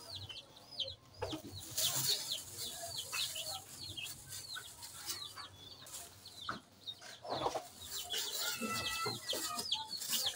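Chickens peeping and clucking, with short high chirps repeating a few times a second. A thin plastic bag crinkles now and then as it is handled.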